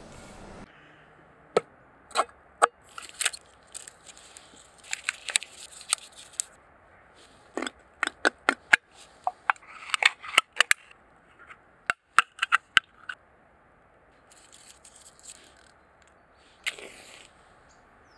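Lever-type can opener punching into and cutting around the lid of a tin can: a long run of sharp metallic clicks and cracks in quick clusters. Near the end a wooden match is struck once.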